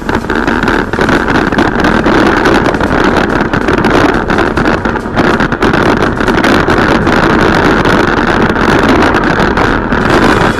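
Mountain bike riding fast over a rough dirt track: loud, steady wind rush on the camera microphone, with tyre rumble and constant small knocks and rattles from the bike over the bumps.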